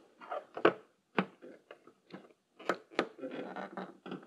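A blue plastic hooked trim tool and fingers working a rubber fuel filler neck seal loose from its metal lip, giving several sharp clicks and taps with soft scuffing of rubber in between.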